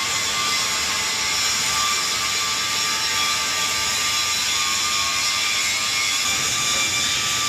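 Steady industrial machinery noise: a constant high hiss with a faint steady whine, unchanging throughout.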